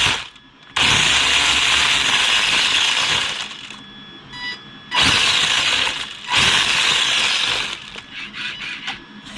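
Electric motor and geared drivetrain of a WLtoys 124019 1/12 RC buggy spinning up in three throttle bursts with the wheels off the ground, each winding down afterwards. The owner finds the drivetrain a little rough and "cloggy" as it slows and suspects the diffs may lack oil.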